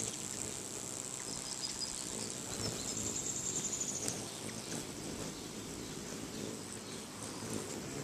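Hummingbird wings humming at close range, a buzzy, fluttering hum that rises and falls as the birds hover. A thin steady high-pitched tone runs underneath and grows stronger for a second or so about three seconds in.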